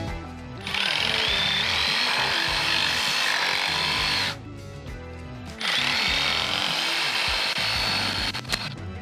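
Cordless reciprocating saw cutting through a buried plastic drain pipe in two runs of about three and a half seconds each, with a short stop about halfway through. Background music plays underneath.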